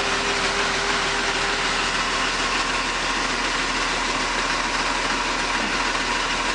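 A 2010 Blue Bird Vision school bus's 6.7-litre Cummins straight-six diesel idling steadily, running pretty smooth, seconds after an unaided cold start at -4 degrees with no block heater plugged in.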